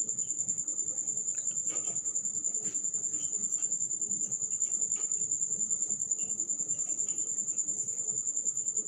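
A continuous high-pitched insect trill, pulsing rapidly and evenly, with a few faint knocks now and then.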